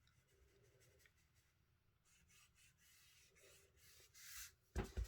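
Faint scratchy rubbing of ink being worked onto card, with a brief louder swish about four seconds in and two quick knocks near the end.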